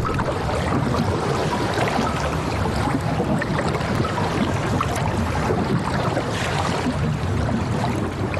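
Rushing, splashing sea water, a steady dense noise with no tones.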